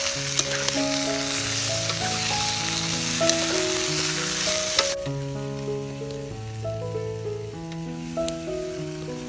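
Pieces of frog frying in oil in a wok, sizzling loudly as they are turned with a wooden spatula. About five seconds in, the sizzle drops abruptly to a faint level.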